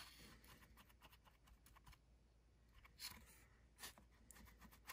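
Near silence, with a few faint soft dabs and scrapes of a paint-loaded piece of sponge held in tweezers, pressed against small plastic model barrels on cardboard. The clearest come about three seconds in.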